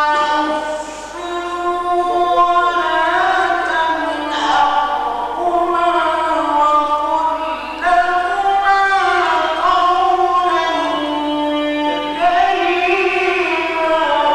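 A male Quran reciter's voice in melodic mujawwad recitation: one voice holding long, ornamented notes that bend up and down, in several phrases with brief breaks between them.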